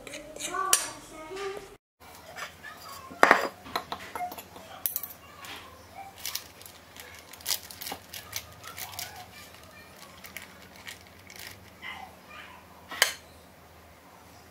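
Metal fork and spoon clinking and scraping against ceramic plates and a bowl of flour, with plastic bag crinkling, as raw chicken is dredged in flour. Two louder clinks stand out, about three seconds in and near the end.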